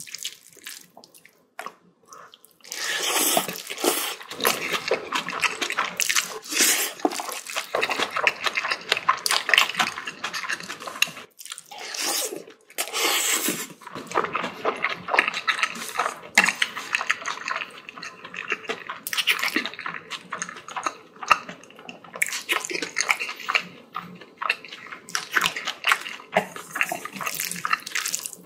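Close-miked wet chewing and mouth sounds of a person eating spicy bibimbap, a dense run of crackly, smacking sounds that starts about three seconds in after a short lull.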